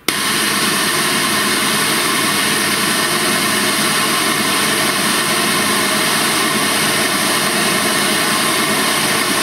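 Edge EDXPRO6W-E9 car-audio midrange speaker playing a steady noise test signal, an even full-range hiss. It switches on abruptly at the start and holds a constant level, with little deep bass coming through.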